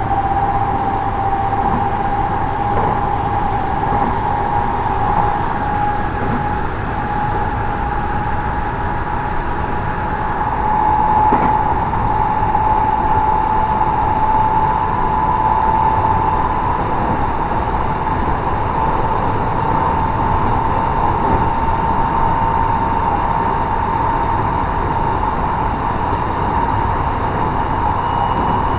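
JR West 223 series 1000-subseries electric multiple unit running at speed, heard from inside its driving motor car: a steady rumble of wheels on rail under a high traction-motor whine that slowly rises in pitch as the train gathers speed.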